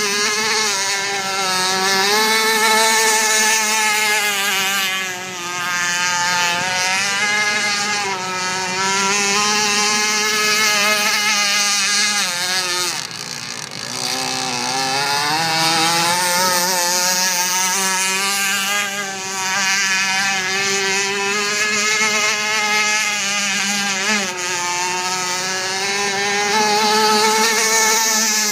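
Radio-controlled speedboat running flat out across open water, its motor whine rising and falling in pitch as it throttles and turns, with a brief drop near the middle before it climbs again.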